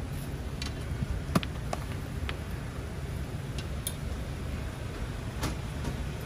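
Scattered light clicks and knocks of watermelon wedges being set down and shifted on a metal display tray, with one sharper knock about a second and a half in, over a steady low background hum.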